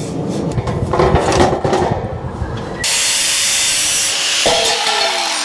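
Metal cable trunking scraped and knocked about on a workbench, then a cordless angle grinder cuts into it with a loud hissing grind for about a second and a half. The grinder is released and its pitch falls away as the disc spins down.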